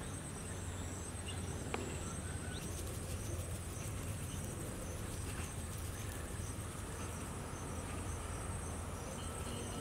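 Insects singing: a steady high-pitched trill with a regular pulse, over a low steady hum.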